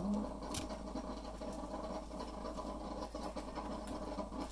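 Steady machine hum with a few faint crisp rustles and light clicks as strips of crispy bacon are laid onto bagel sandwiches on plastic plates.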